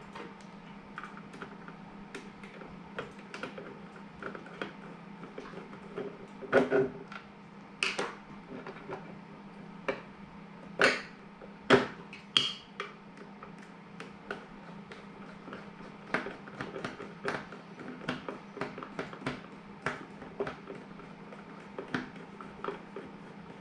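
Irregular small clicks, taps and knocks of a black plastic enclosure being handled and worked on with a small screwdriver, the loudest knocks coming in a cluster about a third of the way in. A steady low hum runs underneath.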